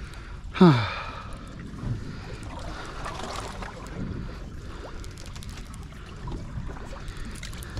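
Steady wind and sea-water noise on an open boat. About half a second in there is a man's short exclamation that falls in pitch, and faint light ticks come near the end.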